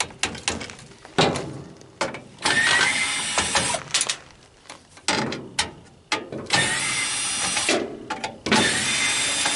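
Power drill-driver backing screws out of a dehumidifier's housing. It runs in three spells of about a second each, with clicks and clatter of parts between them.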